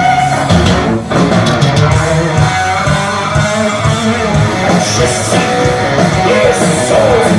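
Heavy metal band playing live, electric guitars over bass and drums, with a guitar line that bends and wavers in pitch.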